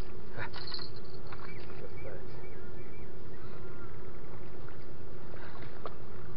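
Steady low outdoor rumble with a faint steady hum under it. A few short, thin chirps and clicks come over it in the first three seconds and again near the end.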